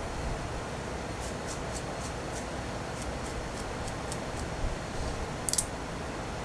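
Hand sewing on a wool suit sleeve: faint, even ticks, about three to four a second, as the needle pricks through the cloth, then a sharper cluster of clicks near the end, over a steady background hiss.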